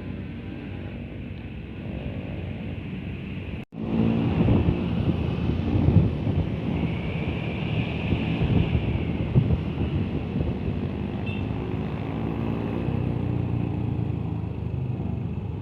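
Engine rumble and road noise from vehicles on the move, with some wind on the microphone. Sound drops out sharply for an instant about four seconds in, and the rumble is louder afterwards.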